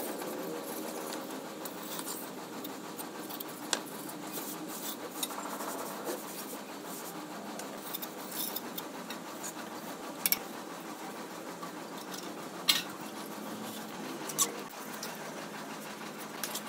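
Mason's straightedge and trowel scraping wet cement mortar along a concrete column cap, with a few sharp clicks.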